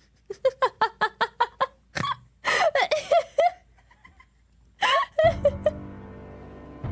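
High-pitched giggling in quick runs of short laughs, about six a second at first, then in two more bursts. A steady music track comes in near the end.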